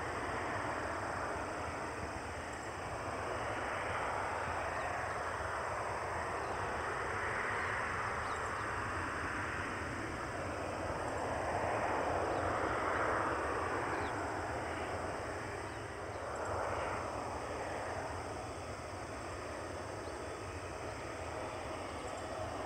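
Distant Boeing 737-800 CFM56-7B jet engines running at low taxi power, a steady rushing hiss that swells and fades every few seconds.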